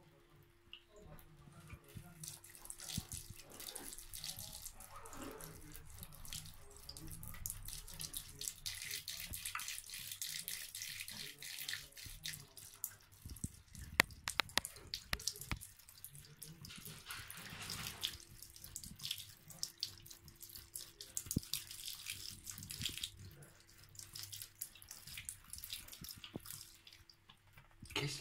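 Thin stream of water from a bathtub tap splashing faintly into the tub, with a cat lapping at the stream and small irregular drips and clicks.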